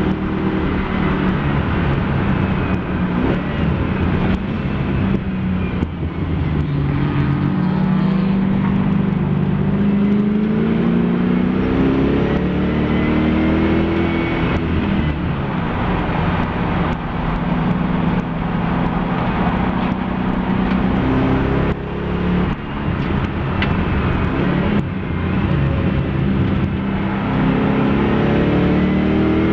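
Race car engine of a Mopar-powered Nissan Fairlady Z at full throttle under load, its pitch climbing through the revs and dropping back at each gear change, several times over.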